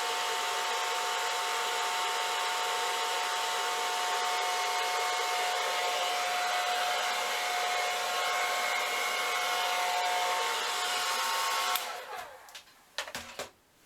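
Handheld hair dryer running steadily with a whine, blowing wet acrylic paint across a pour. It is switched off about twelve seconds in, and its whine falls as it winds down. A few light knocks follow.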